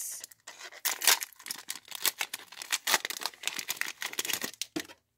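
Foil wrapper of a Pokémon Cosmic Eclipse booster pack crinkling and crackling in the hands as it is torn open and the cards are slid out. The crackles are dense and irregular and stop shortly before the end.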